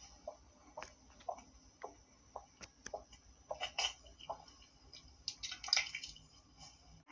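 A cat retching and vomiting: a run of short, wet gulping heaves, then a louder cluster of wet bursts about five to six seconds in as the vomit comes up.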